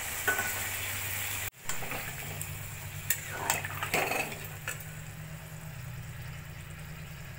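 A steel spatula stirring yam and potato pieces in a wok of curry that has just had water added, with a sizzling hiss and several short scrapes and clicks of the spatula against the pan. A steady low hum runs underneath.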